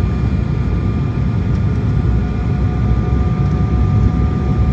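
Cabin noise inside an Airbus A220-300 in flight: a steady, loud, deep rush of airflow and its Pratt & Whitney PW1500G geared turbofan engines, with a couple of faint, steady whining tones above it.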